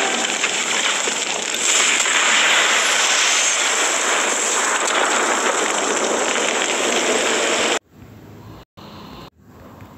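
Cinematic storm and lightning sound effects: a dense, steady rushing noise like wind and rain, which cuts off abruptly near the end.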